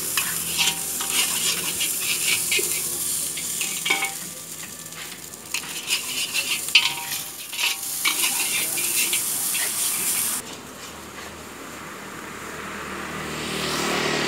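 Fried rice sizzling in a large wok over a charcoal fire, with a metal spatula scraping and striking the wok every second or so, some strikes ringing briefly. About ten seconds in, the sizzling cuts off abruptly to a quieter steady noise that grows louder near the end.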